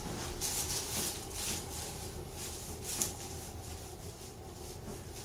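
Soft rustling and rubbing of a patient's body and clothing on a chiropractic treatment table during a manual adjustment, a string of short scuffs in the first two seconds and one sharper click about three seconds in.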